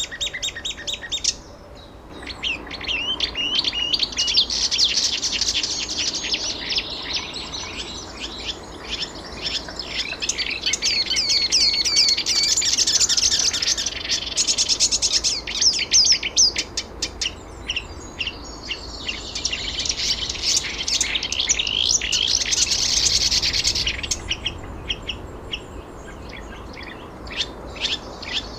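Many small birds chirping and twittering, a dense chorus of rapid high calls that swells and thins by turns.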